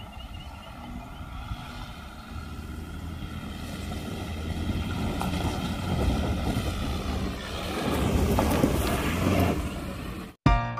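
Toyota Hilux pickup climbing a steep, rutted dirt track in low gear, its engine under load growing louder as it approaches. The sound cuts off suddenly near the end, replaced by music.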